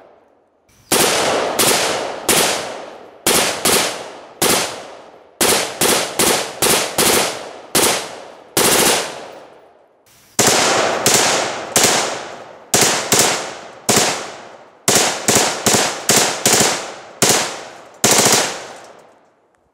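Bushmaster AR-15 rifle firing 5.56 rounds: some thirty sharp shots in quick, uneven succession, each trailing off in a long echo. There is a pause of about a second just before the middle, and the last shot dies away near the end.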